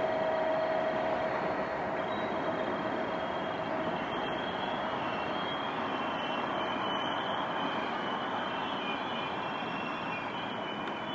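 Freight wagons of a Class 66-hauled train rolling past on the rails: a steady rumble and rattle that slowly fades as the train goes by. Faint high-pitched squeals come and go.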